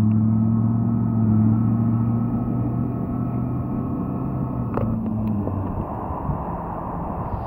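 1960 Dodge Phoenix's engine and exhaust as the car drives away: a steady low note that fades out about two-thirds of the way in, leaving road and wind noise.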